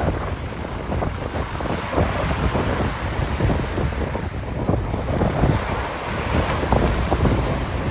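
Strong wind buffeting the microphone in uneven gusts, over the wash of a choppy, whitecapped sea.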